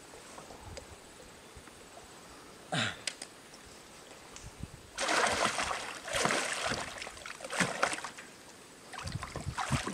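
Water splashing beside a kayak in several bursts, starting about halfway through and returning twice more near the end.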